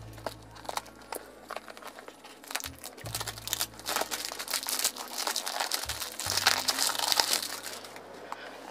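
Clear plastic shrink-wrap crinkling and crackling as it is peeled off a cardboard perfume box, busiest in the second half, over soft background music.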